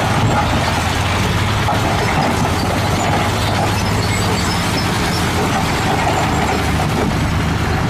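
A heavy truck's diesel engine running steadily with a low, even rumble.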